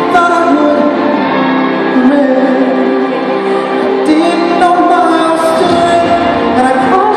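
Live music with a singer holding long, sustained notes over the accompaniment, echoing in a large arena.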